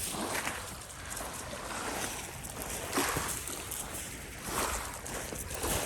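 Small waves lapping and washing at a lakeshore, coming in soft, irregular swells.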